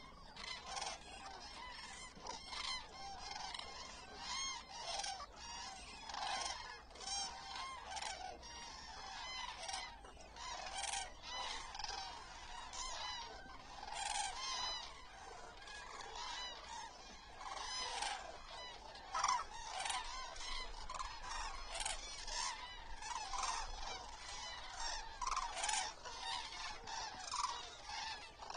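A large flock of common cranes calling: many trumpeting calls overlapping one another without a break.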